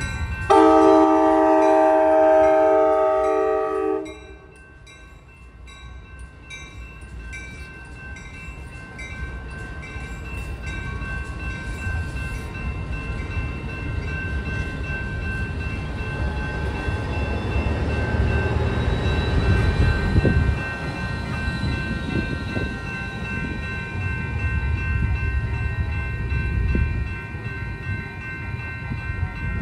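An Amtrak Capitol Corridor passenger train's horn sounds one long chord blast about half a second in. After that the railroad crossing bells ring steadily while the train passes. The wheels and cars make a low rumble that builds, is loudest about two-thirds through, and eases near the end.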